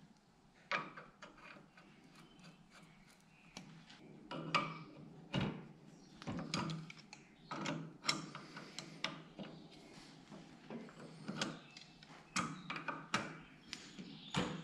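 Scattered metal clicks and knocks of tongue-and-groove pliers gripping and turning a galvanized elbow and brass barb fitting as they are screwed into a hydraulic loader valve.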